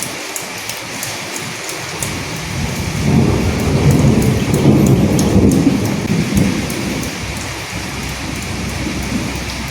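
Steady rain with individual drops ticking through it. A roll of thunder swells up about three seconds in and rumbles away over the next few seconds.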